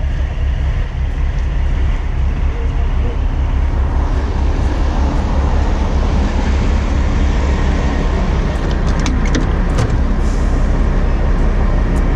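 Steady low rumble of a heavy wrecker's diesel engine running at the roadside, mixed with road traffic, with a few sharp clicks near the end.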